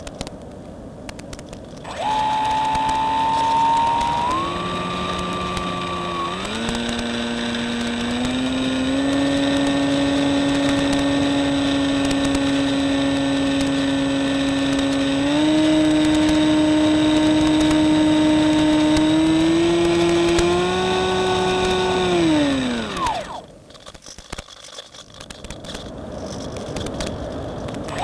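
Electric motor and propeller of a Reely Phönix RC motor glider in flight. After a quieter hiss, the motor whine starts about two seconds in and steps up in pitch a few times as the throttle is opened, then holds steady. Near the end it winds down with a falling pitch as the motor is cut, leaving only a hiss.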